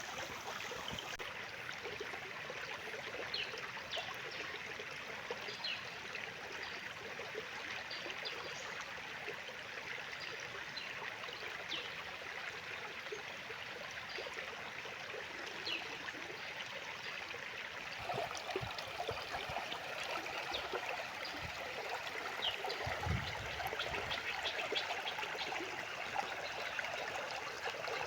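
A stream running steadily, with short bird chirps scattered over it. About two-thirds of the way through, the water grows fuller and splashier.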